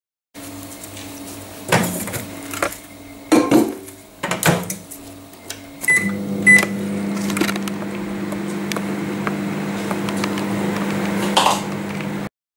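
Candy microwave oven being loaded and started: a few knocks and clunks as the bowl goes in and the door is shut, then two short keypad beeps about six seconds in. The oven then runs with a steady hum, heating marshmallows to melt them.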